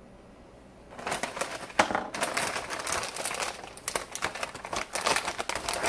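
Plastic chip bag crinkling and crackling as it is handled, starting about a second in.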